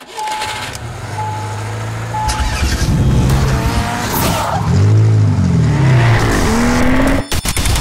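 Sound-designed car engine effect: an engine idles under three short high beeps about a second apart, then revs up and down several times with whooshes, and cuts out in a quick stutter near the end.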